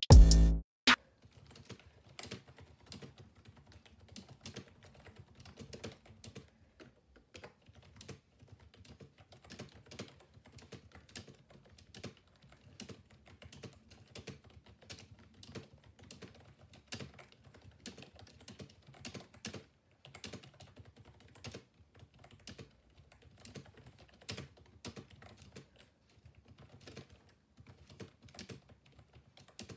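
Fast, continuous typing on a cheap five-dollar backlit keyboard: an uneven run of light plastic key clicks. Loud electronic music cuts off less than a second in, before the typing.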